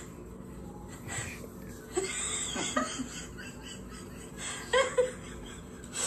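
Short, scattered bursts of laughter and giggling through a tablet's speaker.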